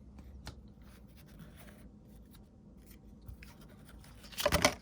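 Topps baseball trading cards being handled and flipped through: faint rustling and soft clicks of card stock, with a short louder clatter of cards about four and a half seconds in.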